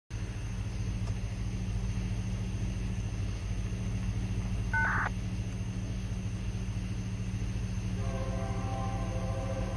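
Diesel freight locomotive running with a steady low rumble. A short horn toot sounds about halfway through, and the multi-chime horn starts a longer blast near the end.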